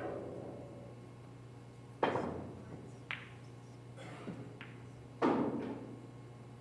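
A pool shot: the cue tip strikes the cue ball at the start, then pool balls click against each other and thud into the cushions. The loudest thuds come about two seconds in and about five seconds in, with a sharp click in between.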